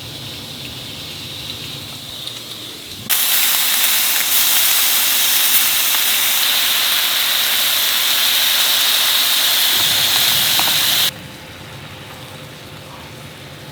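A loud, steady hiss that starts suddenly about three seconds in and cuts off about eight seconds later, over a quieter steady hum.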